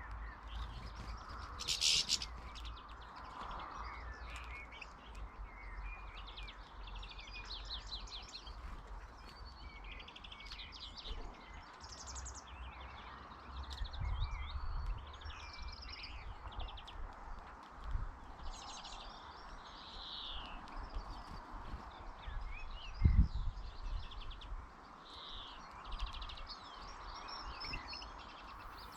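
Small songbirds chirping and twittering, with many short overlapping calls and trills throughout. A low rumble comes and goes, and there is one dull thump about 23 seconds in.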